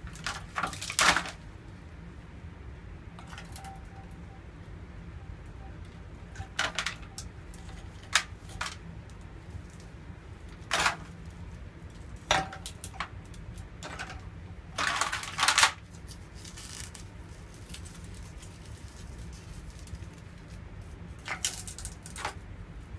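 Frozen ice blocks being picked up and knocked about in a metal tray by gloved hands: scattered clinks, scrapes and crackles of ice against ice and metal, a handful at a time with pauses between, over a steady low hum.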